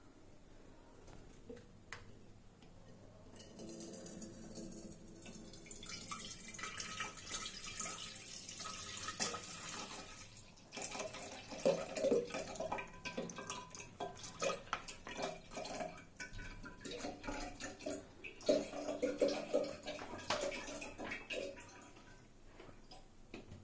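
Liquid milk pouring from a snipped plastic pouch into a metal pot, a splashing, trickling stream that starts a few seconds in and gets louder in two stretches around the middle and near the end.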